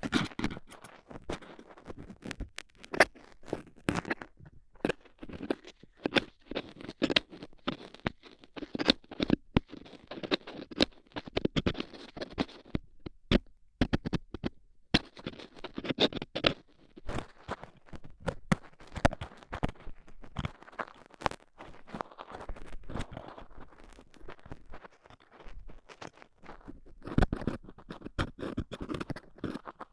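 Stainless steel dental tools scraping and scratching in an ear canal for ASMR ear cleaning: dense, irregular scratches and metallic clicks, with a short pause about 13 seconds in.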